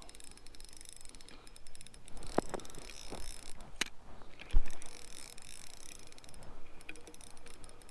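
Hands working ice-fishing gear at the hole while a fish is brought up: scattered small clicks and knocks, with one loud thump about halfway through, over a low rumble.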